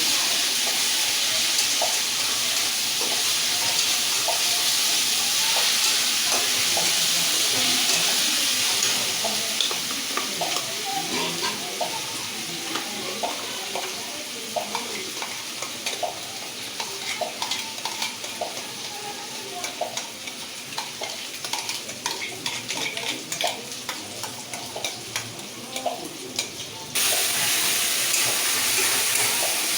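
Ginger-garlic paste and browned onions frying in hot oil in a kadai, sizzling while a spatula stirs and scrapes the pan. The sizzle is loud at first and dies down after about ten seconds, giving way to frequent scraping clicks, then suddenly comes back loud near the end.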